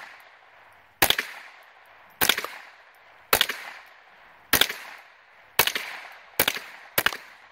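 Marlin Model 60 .22 LR semi-automatic rifle firing seven shots at about one a second, each a sharp crack with a short echo. The action cycles on every shot, freshly sprayed full of WD-40 after it ran sluggish from dirt.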